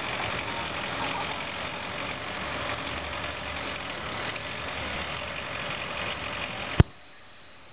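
A JCB mini excavator's diesel engine runs steadily at close range. About a second before the end, a sharp click cuts it off suddenly, leaving only a faint hiss.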